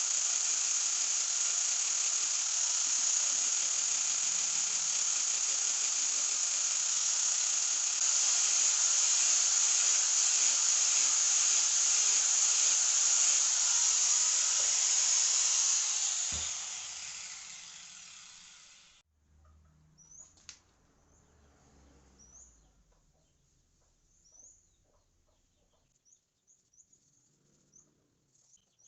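Electric power tool grinding a steel blade: a steady, hissy whine that fades out about two-thirds of the way in. Faint bird chirps follow.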